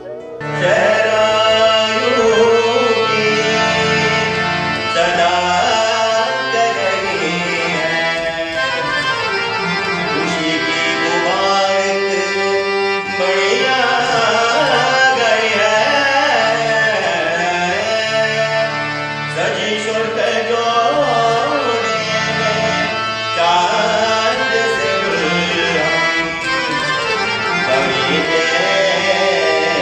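Harmonium and tabla playing together, accompanying a man singing a melodic devotional song.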